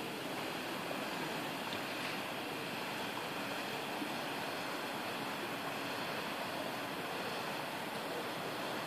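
Steady rush of harbour water washing and lapping against a dock edge.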